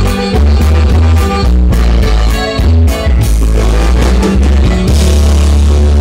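Norteña band music for dancing, with a steady beat over a strong bass line. About five seconds in, the beat stops and a held chord rings on.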